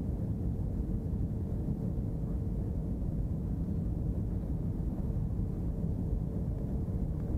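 Airbus A321 cabin noise on approach to landing: a steady low roar of engines and airflow heard from a window seat, with a faint steady hum over it.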